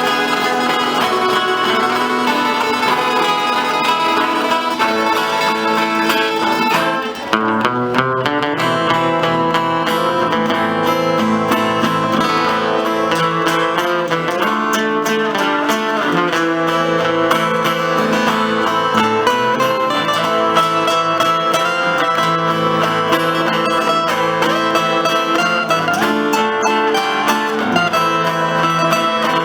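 Instrumental music played on plucked strings, led by guitar, with a brief drop in level about seven seconds in.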